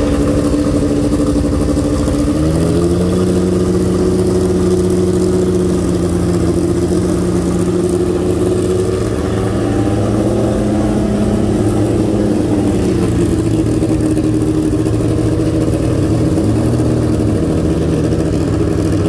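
Lamborghini Countach's V12 engine running at low revs as the car creeps along, a steady note that steps up slightly in pitch about two and a half seconds in. Near the end there is one short blip of the throttle that rises and falls.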